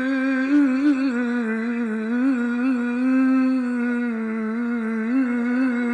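A male voice chanting Islamic devotional song, unaccompanied, holding one long melismatic note without words. The pitch stays steady with small ornamental turns and trills.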